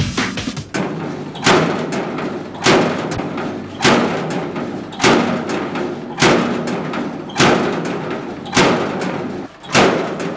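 A heavy thud repeating at a steady pace, about every 1.2 seconds and nine times in all, each one ringing out briefly. A low steady hum runs underneath.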